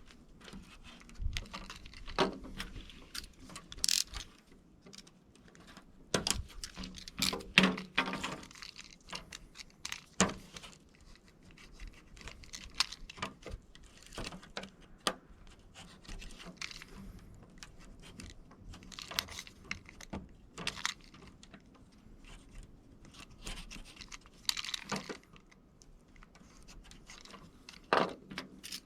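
Irregular clicks, taps and scraping rustles of hands and a tool working a window screen's mesh and frame, a little louder a few times.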